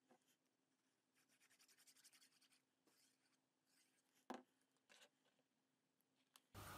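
Near silence with faint, scattered taps and rustles of cardstock panels being handled and glued. Near the end a louder, steady room noise suddenly cuts in.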